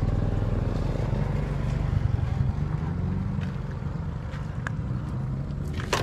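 An engine running steadily in the background, a low drone whose pitch wavers slightly, with a few light clicks over it.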